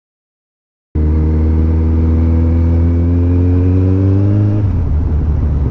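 Kawasaki ZZR1400 (ZX-14) inline-four motorcycle engine running under a gentle, steady acceleration, its note rising slowly. It starts abruptly about a second in, and the note drops and changes near the end, as at a gear change or easing off the throttle.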